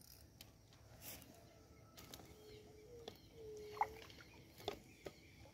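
A hooked bighead carp thrashing at the surface close to the bank: a few faint, short splashes and knocks, the loudest a little under four seconds in and again near five seconds, over faint whistling tones.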